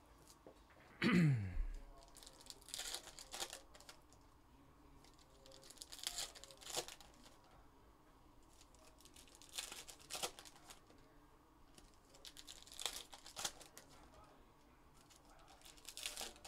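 Foil trading-card packs being torn open and crinkled one after another, a short crackly tear about every three to four seconds. About a second in there is a brief, louder tone that falls quickly in pitch.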